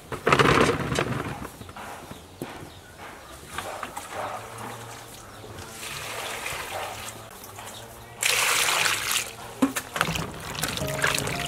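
Rose apples tumbling out of a wicker basket into a plastic basin at the start. Then water is poured from a plastic scoop onto the fruit, loudest about eight seconds in, and near the end hands slosh the apples around in the water to wash them.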